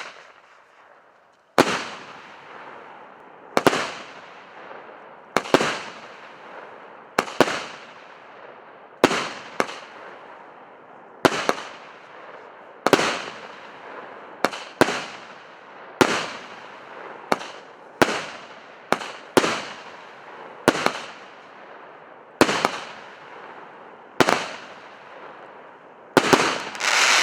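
A 16-shot, 1.2-inch consumer fireworks cake firing its shots in sequence, a sharp bang about every one to two seconds, each followed by fading crackle from the crackling comet trails and crackling silver schwärmers in the bursts. The shots come closer together near the end.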